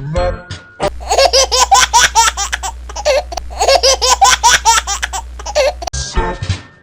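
A high-pitched laugh sound effect: two runs of quick "ha-ha-ha" laughter, each about two seconds long, over a low hum.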